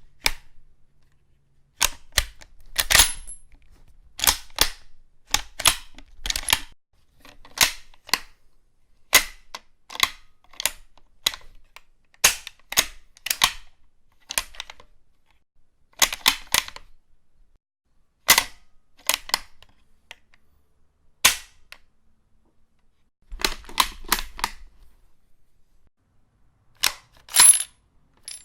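Metallic clicks and clacks of a .303 bolt-action rifle being handled: bolt worked, magazine and rounds loaded and ejected. Short sharp sounds in small clusters, one every second or two.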